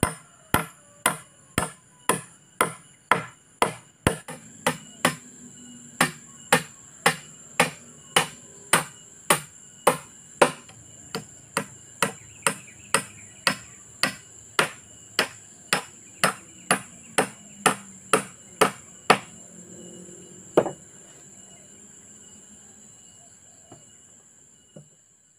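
Repeated chops of a hand blade into a peeled wooden log, a steady rhythm of about two sharp knocks a second that stops about three-quarters of the way through after one last stroke. A steady high insect trill goes on behind.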